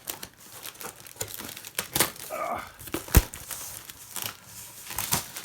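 Postal wrapping being torn open and crumpled by hand: a dense run of crackles and rustles, with a sharp knock about three seconds in.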